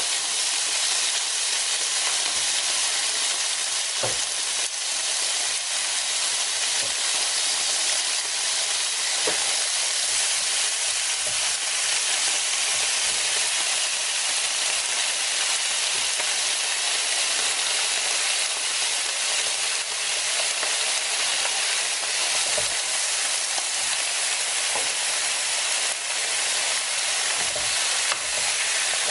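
Slices of pork sizzling steadily on a hot tabletop barbecue grill plate: an even hiss of fat and juices frying.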